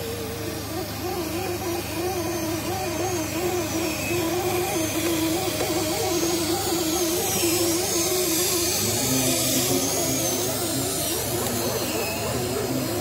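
Small electric motors of radio-controlled scale crawler trucks whining under load, the pitch wavering up and down as the throttle is worked. A second, lower whine joins about nine seconds in.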